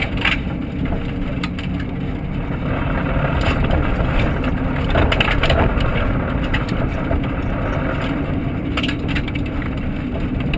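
Cabin noise of a Subaru WRX rally car on the move, driven with busted rear suspension: a steady engine and road rumble with scattered knocks and rattles from the car.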